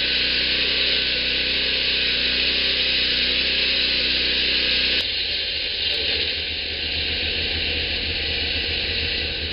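Norwood portable band sawmill running steadily, its engine humming under the hiss of the band blade. The sound changes abruptly about five seconds in.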